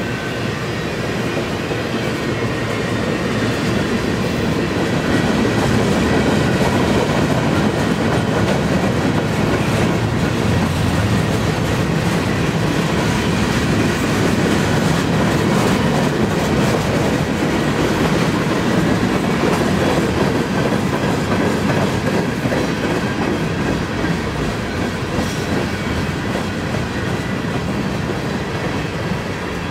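Freight cars of a long CN freight train, centerbeam flatcars and boxcars, rolling past close by: a steady rumble and clatter of steel wheels on the rails, a little louder in the middle.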